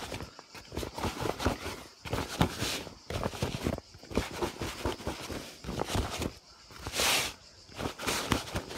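Maggots dusted with maggot-glue powder being stirred and tossed in a bait container so they stick together: a rustling, crunching shuffle in pulses about once a second, with a brief hiss about seven seconds in.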